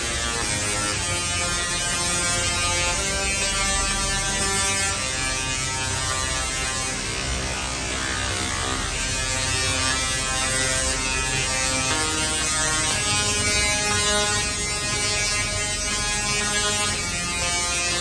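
Tesla coil arcing with a loud, steady electric buzz that shifts in pitch a few times.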